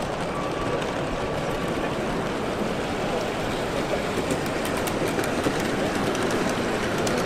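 Model steam locomotive, a J39 0-6-0 goods engine in BR black, running along the track with a train of goods wagons, the wheels clicking lightly over the rail joints. A steady background noise of a busy exhibition hall lies under it.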